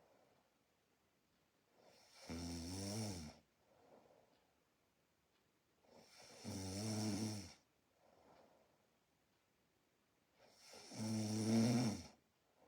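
A person snoring in their sleep: three snores about four seconds apart, each lasting about a second, with faint breaths between them.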